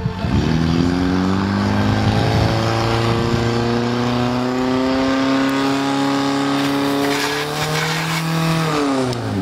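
Portable fire pump's engine revving up quickly to high revs, held there for about eight seconds with the pitch creeping slightly higher, then throttled back with a falling pitch near the end.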